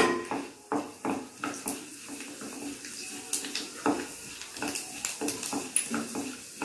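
Mustard seeds and urad dal frying in hot oil in a nonstick kadai as a wooden spatula stirs them: a steady sizzle broken by irregular sharp pops and crackles of the seeds spluttering.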